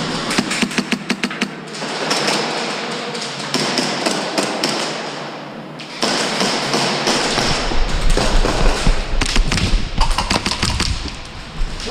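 Airsoft guns firing in quick strings of sharp clicks, once at the start and again in the second half, with rustling and dull thumps between the strings.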